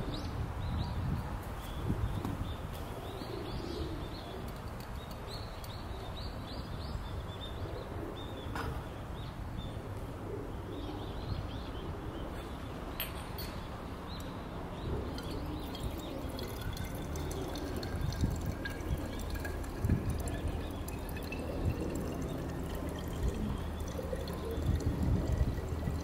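Liquid poured from a glass beaker through a small funnel into a glass bottle, a trickling stream whose tone rises steadily through the second half as the bottle fills. Birds chirp in the background.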